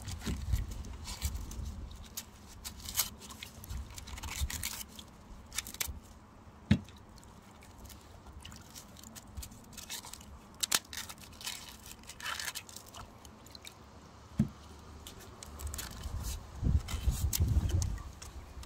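Onions being peeled by hand in a wooden bowl of water: the papery skins crackle and tear, with water sloshing and scattered sharp clicks.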